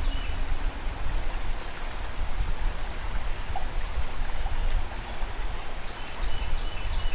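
Steady rush of flowing river water with a low rumble underneath. Faint high chirps come in at the start and again near the end.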